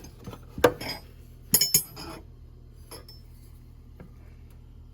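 Steel tappet wrenches clinking against each other and the metal toolbox as they are handled: a few short, sharp metallic clinks, the loudest about half a second in and a close pair about a second and a half in.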